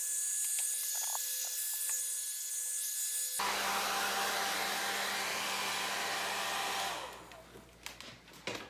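Handheld hair dryer blowing steadily over the fur of a bobcat mount on its cool setting. Its sound shifts about three seconds in as it is moved down to the legs, and it switches off about seven seconds in, followed by a few light handling knocks.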